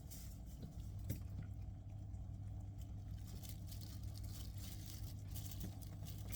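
A pet eating: a run of light, quick clicking and crunching bites over a steady low hum.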